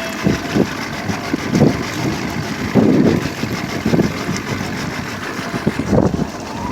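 Boat motor running steadily at trolling speed, with irregular low rumbling surges over it, the strongest about three seconds in and again near the end.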